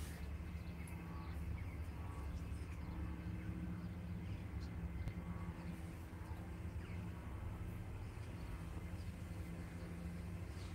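Outdoor ambience: a steady low hum with a few faint, brief bird chirps.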